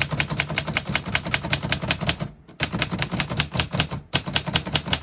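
1924 Underwood 3-bank portable typewriter being typed on: rapid key-and-typebar strikes at about seven a second, with two brief pauses.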